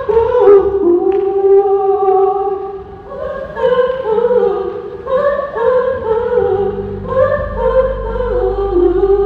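Women's vocal group singing together through microphones and a PA, holding long notes and moving between them. A low steady hum comes in about seven seconds in.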